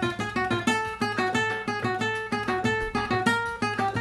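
Flamenco guitar played picado: a quick, even run of single picked notes, about four to five a second.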